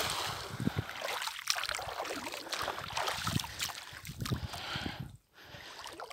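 Splashing and trickling water with many small scattered knocks as a cast net settles in shallow lake water on its rope. The sound breaks off briefly about five seconds in.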